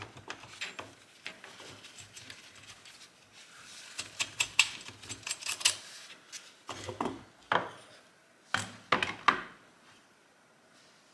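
Hand work on a chainsaw: scattered light metallic clicks, clinks and scraping of parts and tools, with a few sharper knocks past the middle.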